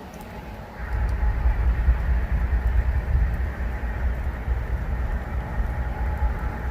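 Train passing close by: a loud, steady low rumble that comes up suddenly about a second in and holds.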